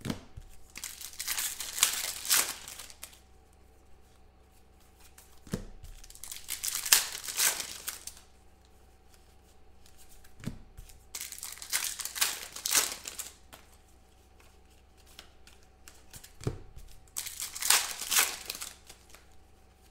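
Foil trading-card packs being torn open and crinkled, one after another: four bursts of rustling foil, roughly every five seconds, each just after a soft knock.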